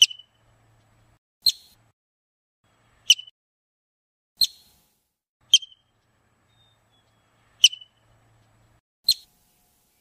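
Marmot giving short, sharp, high-pitched whistling calls, seven in all, spaced unevenly one to two seconds apart.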